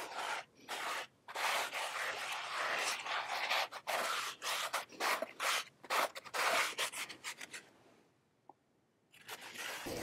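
Repeated rubbing strokes on the cut end-grain top of a wooden log stump, a cloth worked back and forth over the wood in quick uneven passes. They stop about two seconds before the end, and a different noise begins just before the end.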